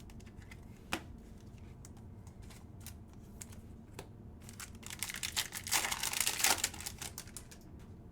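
Trading-card pack wrapper being crinkled and torn open, with scattered clicks and ticks from cards being handled. The crinkling is loudest from about five to seven seconds in.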